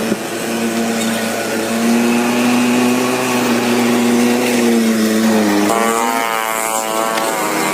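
A motor running steadily with a humming pitch that drifts slightly, then changes abruptly about six seconds in.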